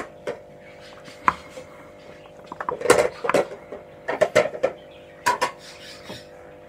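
Eggs and hands knocking and clinking against a round metal pan packed with raw meat and vegetables as the eggs are set in place: irregular light knocks, with a busy cluster about three seconds in and another about four seconds in.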